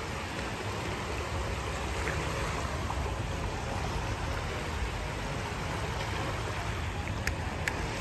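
Small waves washing and lapping over the shallows at the water's edge, a steady rushing wash of surf.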